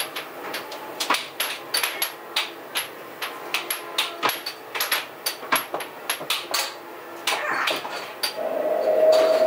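Air hockey game: sharp plastic clacks of the mallets striking the puck and the puck hitting the table rails, irregular, two or three a second. A steady tone comes in near the end and is the loudest sound.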